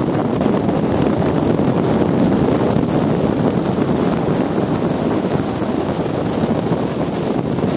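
Steady rush of wind buffeting the microphone on the roof of a fast-moving riverboat, with the boat's running noise through the water beneath it.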